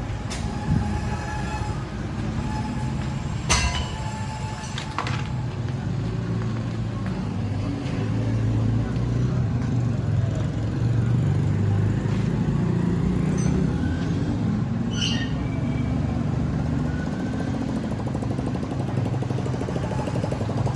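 A steady low engine rumble, with a few sharp knocks at about three and a half, five and fifteen seconds in.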